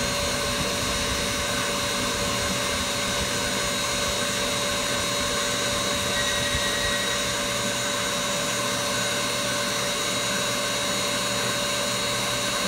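KitchenAid Artisan stand mixer running at a steady speed, its wire whisk beating whipped cream in a glass bowl: an even motor whine that holds one pitch throughout.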